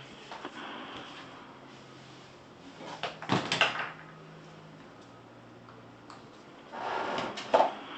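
Two brief scraping, handling noises, one about three seconds in and a longer one about seven seconds in, over a faint low hum.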